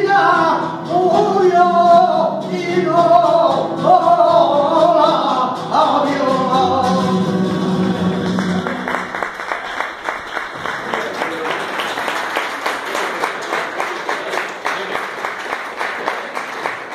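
Male flamenco singer's voice holding and bending sung phrases, ending on a long low note about halfway through. Then audience applause, slowly thinning out.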